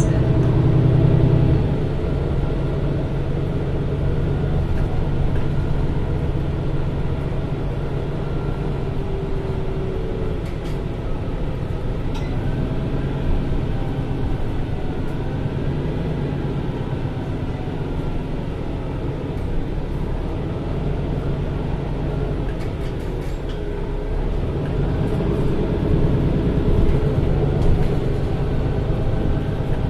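MAN A21 Lion's City NL323 city bus running in service: a steady diesel engine rumble with a faint whine that rises and falls in pitch midway. The engine is louder at the start and again for a few seconds near the end.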